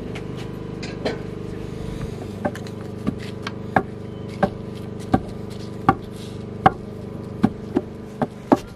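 Knife chopping food on a cutting board, a sharp chop about every two-thirds of a second from about two seconds in, over a steady low hum.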